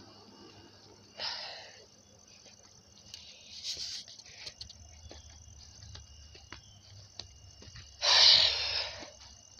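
A person breathing out heavily into a handheld phone's microphone, in short breathy bursts. The loudest comes about eight seconds in. Light handling clicks and a faint steady high insect drone sit underneath.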